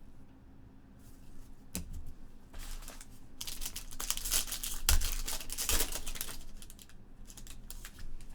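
Crinkling and rustling of plastic trading card packaging being handled. There is a sharp click about two seconds in, then a few seconds of dense rustling with a knock in the middle.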